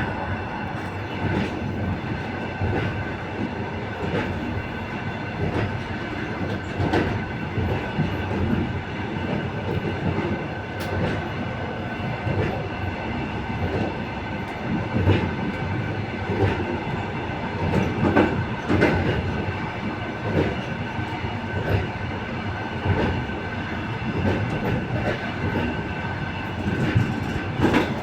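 Passenger train wheels clattering over rail joints, heard from the vestibule of a moving carriage: a steady rumble and a thin steady whine, with sharp clacks coming in irregular clusters, several in quick succession about two-thirds of the way through and again near the end.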